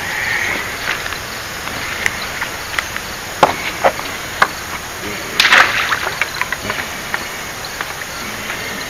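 Scattered footsteps, knocks and scuffs on loose stones and dry grass as a person walks down a rocky bank carrying a landing net, with one louder burst of noise about five and a half seconds in.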